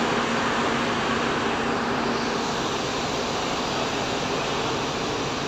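Coach bus engine running as the bus moves slowly forward, a steady rushing noise with a low hum that fades about two seconds in.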